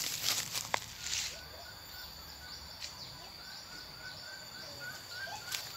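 Rustling noise for about the first second, then outdoor ambience: a bird calling in a run of short repeated chirps, about two a second, over a steady high insect drone.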